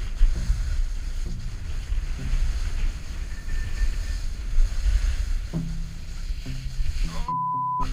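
Wind buffeting a helmet-mounted camera's microphone and a snowboard sliding and scraping over snow on a downhill run, with a heavy rumble. Near the end, a steady half-second beep cuts out all other sound: a censor bleep.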